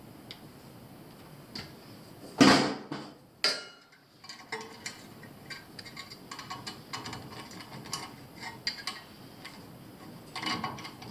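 Hands working on zone-valve wiring with small tools: a loud scrape about two seconds in and another a second later, then a string of small clicks and taps.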